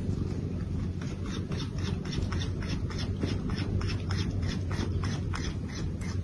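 Domestic cat purring: a steady low rumble with a fast, even flutter.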